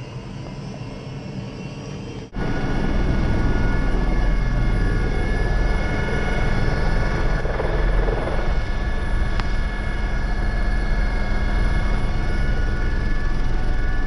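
Airbus helicopter's turbine engine and rotor running: a steady whine over a deep rumble. About two seconds in it jumps abruptly louder and stays at that level as the helicopter flies.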